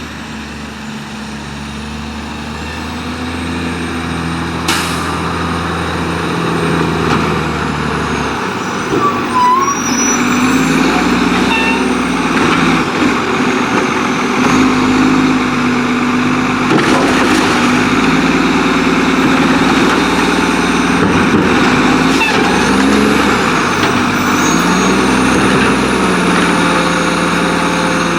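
Diesel engine of an Autocar WX garbage truck running in gear, its pitch stepping up and down as it revs, growing louder over the first ten seconds or so. There is a sharp click about five seconds in.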